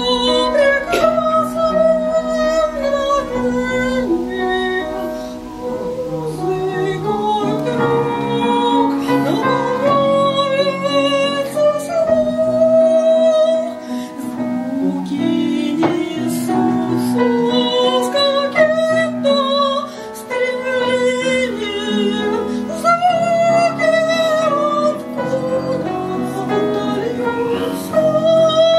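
A woman singing a Russian romance in a trained, operetta-style voice with vibrato, accompanied by an upright piano.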